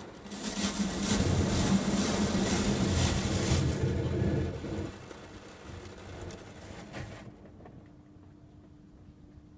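Rotating brushes of a Christ Sirius rollover car wash scrubbing over the car with spraying water, heard from inside the cabin. A loud, steady scrubbing noise eases off about five seconds in as the brush moves away, leaving a quieter steady hum.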